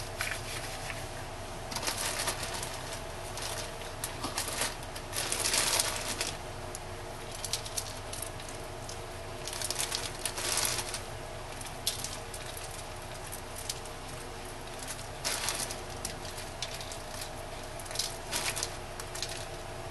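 A plastic zip-top bag of rolled oats rustling and oats pattering onto soap in a silicone mold as they are sprinkled by hand. The rustling comes in short bursts of a second or so, several times, over a steady background hum.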